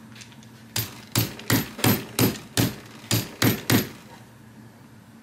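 Small brass-headed hammer striking a hair-shear blade about nine times in quick succession, roughly three sharp taps a second, to knock free a part rusted into the blade at the pivot.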